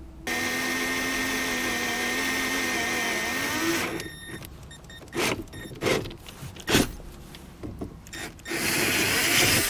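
Cordless drill running at a steady speed, boring a 3/8-inch hole through a plastic dashboard panel; its whine rises slightly in pitch just before it stops about four seconds in. Scattered knocks and clicks follow, then a second, noisier burst near the end.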